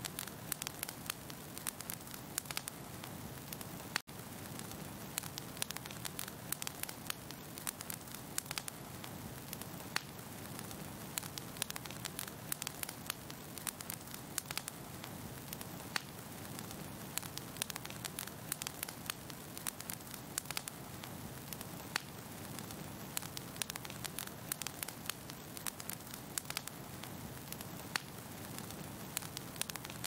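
Fire crackling: a steady hiss of burning with frequent sharp pops and snaps scattered through it, cutting out for an instant about four seconds in.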